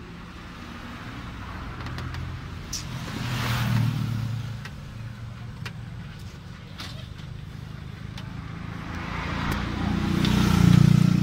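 Motor vehicle noise: a steady low engine hum, with two swells that rise and fall away, the second louder near the end, like vehicles passing on the road.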